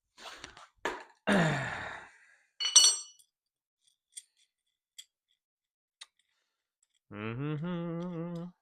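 Workshop handling sounds: a man's sigh with falling pitch, then a single ringing metallic clink of tools or hitch parts, a few faint ticks, and near the end a steady pitched hum lasting about a second and a half.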